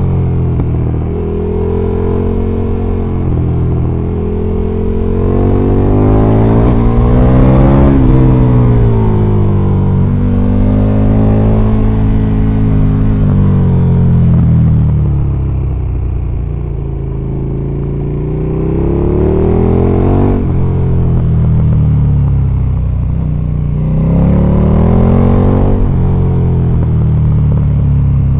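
KTM 1290 Super Duke R's big V-twin engine under way, its note rising and falling as the rider opens and closes the throttle and shifts through the bends. Wind rushes over the helmet camera underneath.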